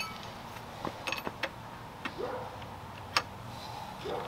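Scattered light clicks and taps of metal as a compression tester's gauge, hose and fitting are handled while being moved to the next cylinder of a flathead V8. The engine is not cranking.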